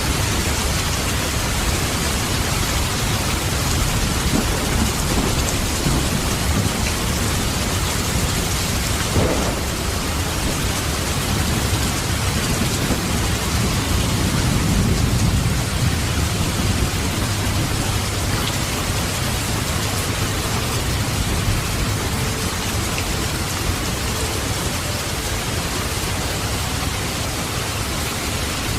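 Heavy rain falling steadily, with a low rumble of thunder swelling in the middle and a single sharp snap about nine seconds in.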